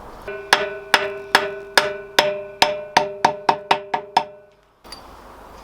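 A small ringing metal object knocking about a dozen times, the strikes coming faster and slightly softer like something bouncing to rest, with a steady two-note ring. It cuts off abruptly shortly before the end.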